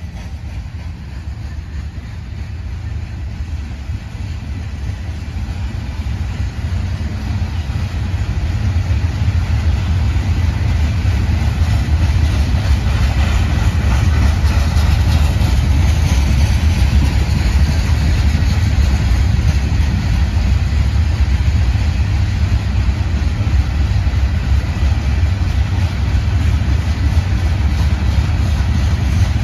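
Diesel locomotive engine running with a deep, steady rumble, growing louder over the first several seconds and then holding steady.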